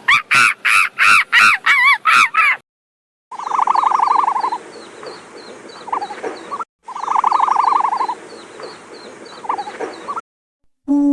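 Animal calls: a rapid run of loud, pitched calls, about five a second, stopping after about two and a half seconds. After a short gap comes a different recording, a pulsing call followed by a few quieter calls, played through twice.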